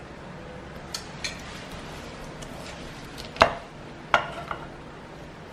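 Steel knife and fork carving a roast chicken in a glass baking dish: a handful of short, sharp clinks and taps of the cutlery against the dish, the loudest about three and a half seconds in.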